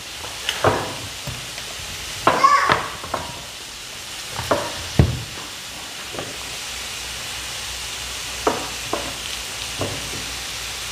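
Knife slicing chunks off a peeled pineapple, with scattered knocks and taps as the pieces drop into a small bowl; the loudest comes about five seconds in. A steady sizzle of chicken deep-frying in oil runs underneath.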